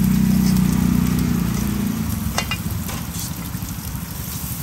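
Eggs sizzling in hot oil on a flat pan, with a metal ladle clinking against the pan a few times past the middle. A low rumble sits under the sizzle in the first half and fades.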